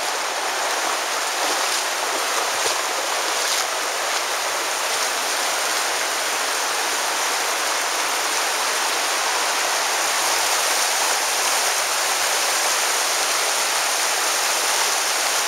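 Virgin River's water flowing steadily, a constant rushing hiss of the current.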